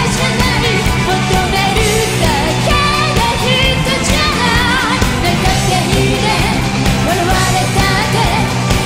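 Live pop-rock band performance: a woman singing the lead vocal into a handheld microphone over a full band with drums.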